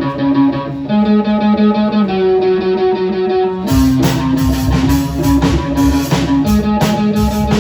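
Rock band playing: an electric guitar figure of held notes alone, then drums and cymbals with the full band come in about three and a half seconds in.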